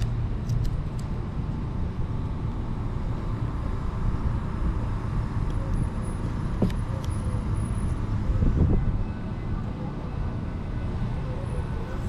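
Steady low rumble of road traffic, with a few light clicks and a short louder swell near the end.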